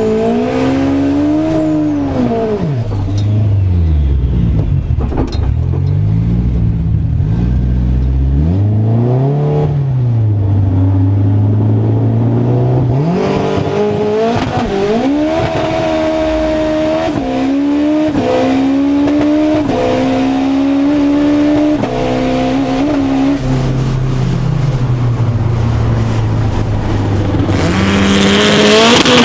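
Turbocharged Nissan SR20DET four-cylinder in a drag-race S13 Silvia, revving and then pulling hard through a string of quick sequential gear shifts, the pitch climbing and dropping back at each shift. A rushing noise builds near the end.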